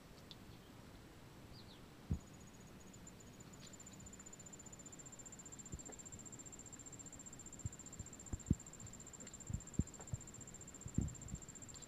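An insect's steady, high-pitched pulsing trill starts about two seconds in and keeps going. Several dull low thumps come in the second half.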